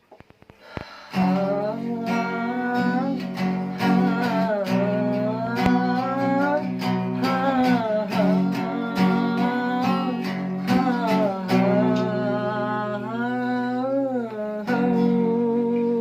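A song with acoustic guitar strumming under a gliding melody line, starting about a second in after a brief near-silent pause.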